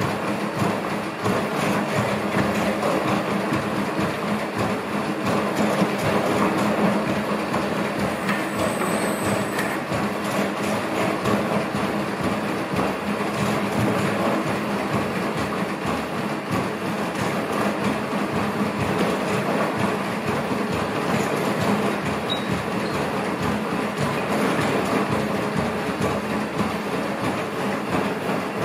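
ANYmal B quadruped robot stepping in place: a steady mechanical whir from its joint actuators under a continuous rapid clatter of footsteps and joint clicks.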